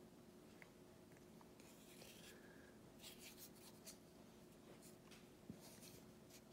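Near silence: room tone with a faint steady hum and a few soft, brief rustles.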